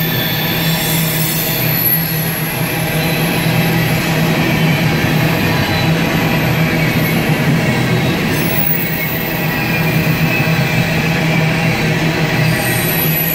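Coal train's loaded hopper cars rolling past on jointed track: a steady heavy rumble of steel wheels on rail, with high thin wheel squeal that is strongest near the start and near the end.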